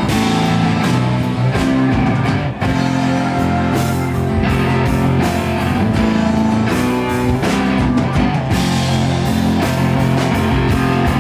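Live country-rock band playing an instrumental break between vocal choruses, with guitar to the fore over a full band. The music is loud and continuous.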